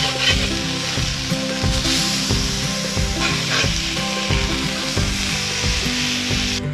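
Minced lamb kebabs sizzling and frying in their own fat on a hot cast iron griddle over a wood fire, a steady hiss.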